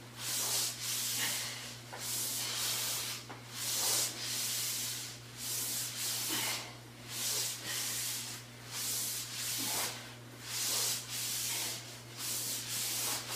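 Paper-plate sliders swishing across carpet under the feet in a low plank, in a steady back-and-forth rhythm of about one swish a second, over a steady low hum.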